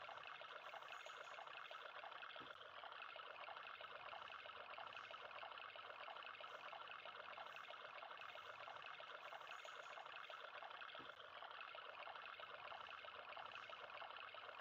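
Faint, steady trickle of water running from a thin plastic tube into a shallow puddle.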